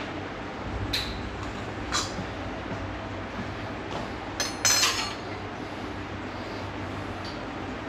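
Kitchen utensils and dishes clinking: a few separate sharp knocks, the loudest a quick cluster about four and a half seconds in, over a steady low hum.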